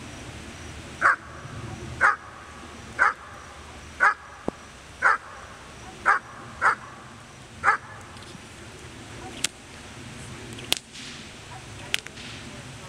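German Shepherd barking at a protection helper in a steady rhythm, eight barks about one a second: the dog holding the helper at bay in a protection courage test. Afterwards come a few sharp cracks.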